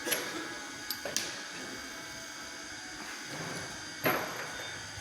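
Tools and metal parts knocking and clinking during teardown of a Ford CD4E automatic transmission: a knock at the start, two quick ones about a second in and a louder one near the end, each with a short ring, over a steady faint hum.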